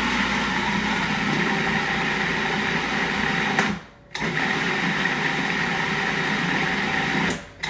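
Food processor motor running as it blends a thick sun-dried tomato pesto. It cuts out suddenly a little past halfway, starts again half a second later, and stops near the end.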